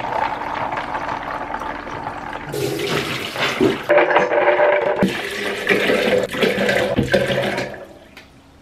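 Water running and splashing while soaked almonds are tipped from a metal mesh strainer into a plastic blender jug, then water poured into the jug from a measuring cup near the end.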